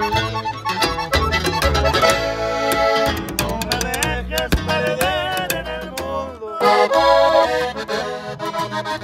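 Live regional Mexican band instrumental break: an accordion plays the melody over plucked upright bass (tololoche) notes and strummed strings.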